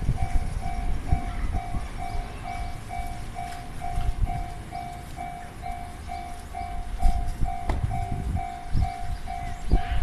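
Japanese railway level-crossing warning alarm ringing its electronic two-tone chime steadily, about two rings a second. Under it runs the low rumble of a train passing, with a few heavier thumps.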